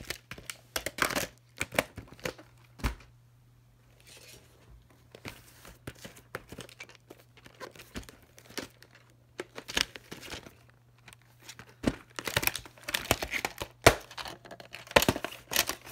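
Plastic clamshell VHS cases and cassette tapes being handled: irregular clicks, snaps and rustling as a case is opened and a tape is picked up and moved about, in clusters with a short quieter pause early on.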